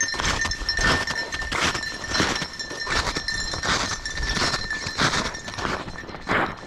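Snowshoe footsteps crunching on hard-crusted snow at a steady walking pace, about three steps every two seconds.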